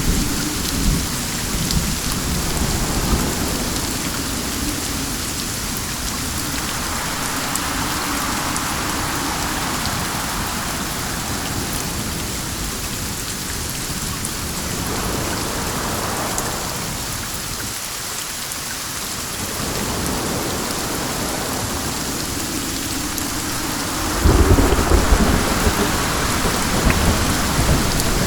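Steady rain falling with wind, under a low rumble; about 24 seconds in a louder low rumble comes in suddenly and carries on to the end.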